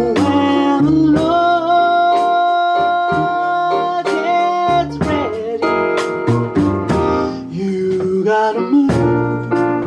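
Blues played on piano: repeated chords under a melody, with one long held, slightly wavering note from about one to four seconds in.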